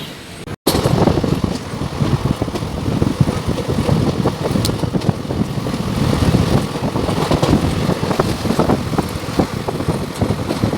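A moving train's loud rumble mixed with heavy wind buffeting the microphone, starting abruptly about half a second in.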